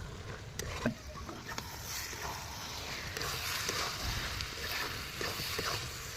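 Goat offal frying with onion and chili-cumin paste in a pan as it is stirred: a steady sizzle that grows louder after about two seconds, with a couple of sharp clicks near the start.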